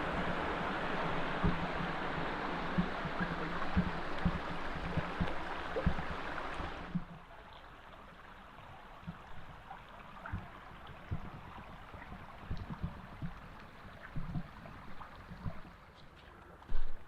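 A stream running steadily with footsteps on a woodland path over it. About seven seconds in, the water sound cuts off suddenly, leaving quieter, irregular footsteps.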